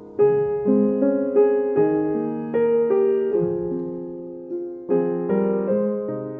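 Background music: a slow solo piano melody with chords, notes struck one after another and left to ring.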